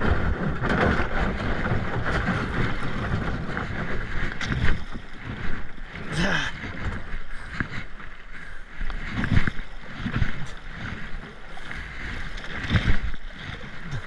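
Fast river water rushing and splashing around a kayak in choppy current, with paddle blades dipping and pulling through the water. Wind rumbles on the microphone.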